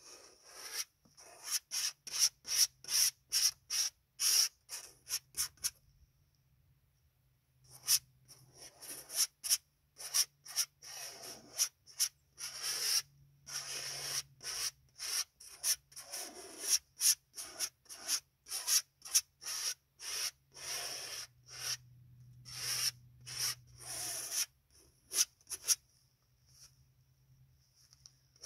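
Palette knife scraping thick oil paint onto a large canvas in quick, short strokes, a few per second, with a pause of about two seconds about a quarter of the way in.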